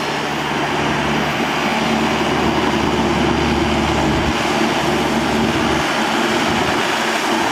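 Yanmar YM 348A tractor's diesel engine running steadily under a loud, even mechanical noise.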